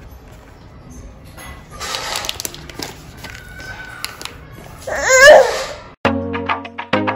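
A baby's loud, wavering squeal about five seconds in, after a stretch of quiet room noise with a few soft knocks. A second later, background music with a steady beat cuts in suddenly.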